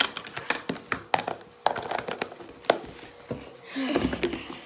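Plastic slime containers handled on a wooden tabletop: scattered light taps and clicks, then a longer, denser rustle of handling near the end.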